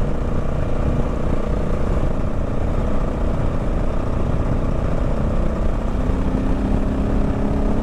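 Motorcycle engine running steadily at road speed over a constant rush of noise, its note rising slightly in the last few seconds.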